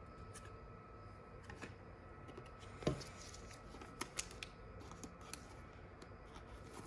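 Trading cards being handled: faint sliding and scattered small clicks and taps, with one louder thump about three seconds in.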